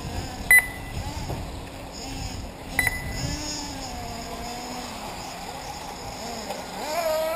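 Radio-controlled off-road model cars running on a dirt track, their motors whining and rising and falling in pitch as they speed up and slow down, louder near the end. Two short, sharp beeps about two seconds apart cut through, the first about half a second in.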